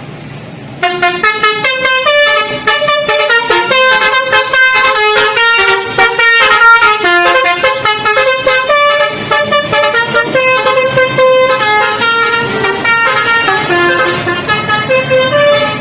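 Multi-tone 'telolet' air horn of the NPM bus V41 'Khazanah', playing a long melody of quick pitch steps. It starts suddenly about a second in and is loud.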